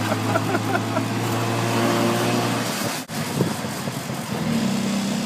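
Tuk-tuk's engine running as it drives through traffic, heard from the passenger seat. The engine note is steady at first and runs at a higher pitch in the last second after a short break.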